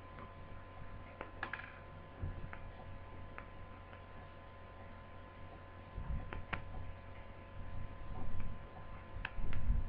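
Scattered small clicks and taps of a screwdriver working screws into a laptop screen assembly, with a few low thumps as the parts are handled, over a steady electrical hum.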